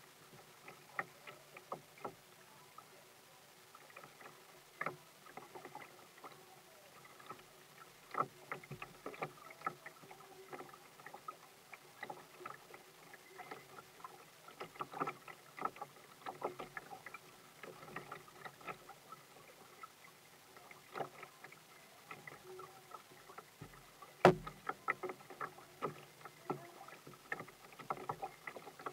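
Small wind-driven waves lapping and slapping against a kayak's hull, in irregular little splashes and ticks, with one sharper knock about 24 seconds in.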